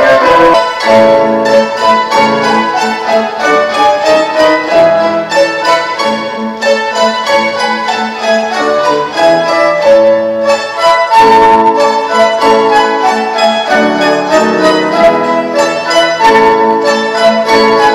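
A mandolin ensemble playing with a solo flute: many plucked mandolin strings with quick picked notes under the flute's melody.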